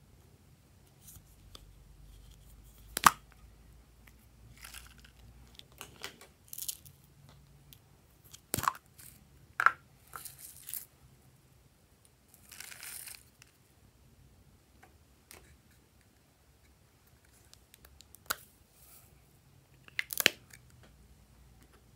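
Hands handling slime add-ins in a glass bowl: scattered soft crinkling and tearing with several sharp plastic clicks, the loudest about three seconds in. Near the end comes a quick double click as a small plastic container's cap is snapped open.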